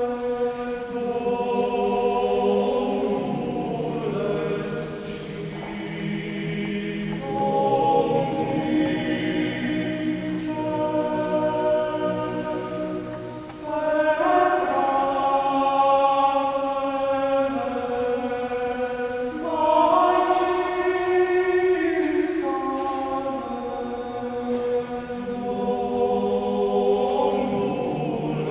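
Male vocal ensemble singing a Romanian Christmas carol a cappella in several parts, in a large church. Long held chords change phrase by phrase, with a brief pause between phrases about halfway through.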